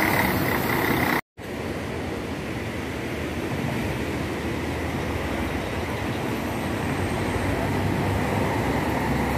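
An intercity coach passing close, with a faint steady high whine, cut off abruptly just over a second in. Then the low, steady rumble of another intercity coach's diesel engine, growing slowly louder as it approaches and turns in.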